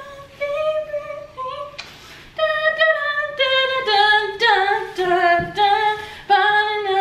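A woman singing a tune unaccompanied, a run of held notes stepping between pitches, louder from about two and a half seconds in.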